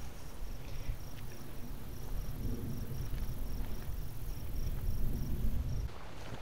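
An insect chirping steadily, a short high pip about three times a second, over wind buffeting the microphone. Both cut off abruptly near the end.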